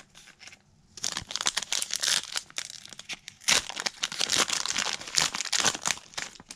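Foil wrapper of a Bowman University football card pack crinkling and tearing as it is ripped open by hand. It starts as a dense crackle about a second in and stops just before the end.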